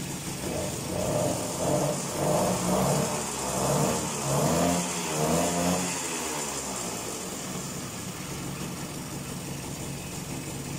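BT80 80cc two-stroke motorized bicycle engine running on its first run. It is revved in a series of short surges about a second apart for the first six seconds or so, then settles to a steady idle.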